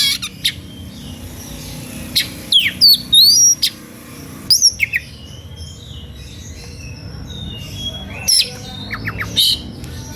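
Oriental magpie-robin (kacer) singing its whistled 'suitan' song: sharp whistles, quick rising and falling glides and chirps in short loud phrases with pauses between them. This is the emotional, provoking style of song that draws rival magpie-robins into singing.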